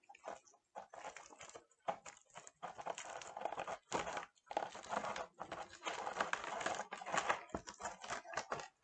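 Air-filled foil Starpoint balloons crinkling and rustling under the hands as they are rolled up and tied: faint, irregular crackles, sparse at first and busier from a couple of seconds in.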